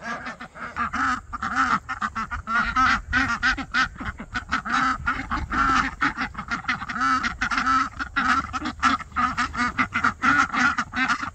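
A group of young ducks quacking in a constant chatter of many short, overlapping calls.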